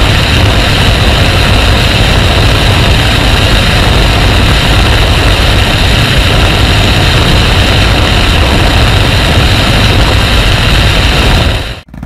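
Cruiser motorcycle engine running steadily at road speed, heard from the rider's seat with wind rushing over the microphone. The sound cuts off abruptly near the end.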